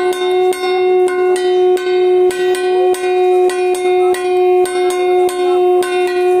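A conch shell blown in one long, steady note, with a metal bell struck in an even beat a little under twice a second alongside it: the conch and bell sounded at puja worship.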